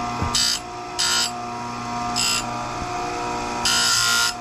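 Electric bench chainsaw-chain grinder running with a steady motor hum, its grinding wheel touching down on a saw-chain cutter tooth four times in short grinding bursts, the last one longest.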